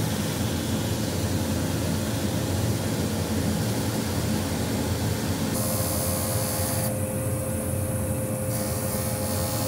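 Shoe finishing machine running, its sanding belt grinding the edge of a shoe's heel and new top lift with a steady whirring, grinding noise. A little past halfway the sound changes in steps, and a steady hum comes in.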